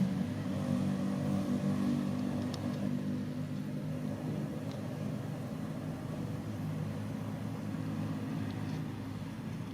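Steady low motor rumble of an RC off-road crawler running, easing slightly a few seconds in.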